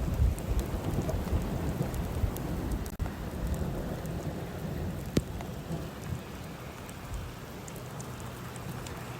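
Heavy rain falling steadily, with a deep rumble at the start that dies away over the first several seconds. There is one sharp tick about five seconds in.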